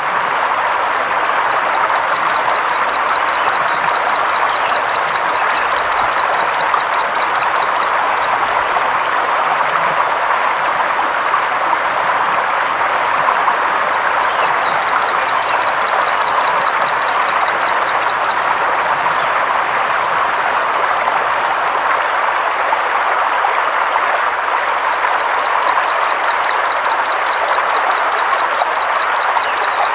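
Forest river water rushing steadily. Over it, a high, rapidly pulsing trill comes in three long bouts, with a few brief high chirps in between.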